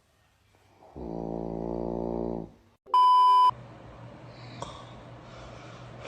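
A single long, buzzing snore lasting about a second and a half. It is followed by a louder, half-second electronic beep, after which a low steady hum carries on.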